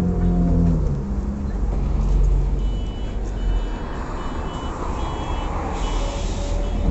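City bus engine running close by, with a low rumble throughout. About two and a half seconds in, short high two-tone beeps start repeating, and near the end there is a burst of air hissing.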